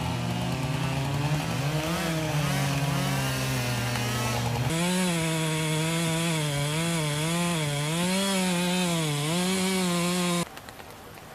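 Chainsaw running and cutting, its engine pitch rising and dipping as it takes load. It cuts off suddenly near the end, leaving a fainter steady hiss.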